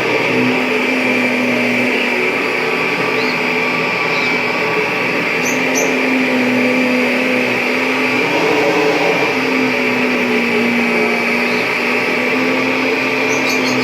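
Kirby G5 upright vacuum cleaner running steadily with a motor hum and a high whine. A few brief high ticks come about halfway through and near the end.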